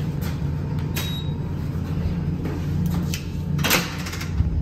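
A glass door with a metal pull handle is unlatched and pulled open, with the loudest clack about three and a half seconds in. A short high beep comes about a second in, with a few clicks, over a steady low rumble.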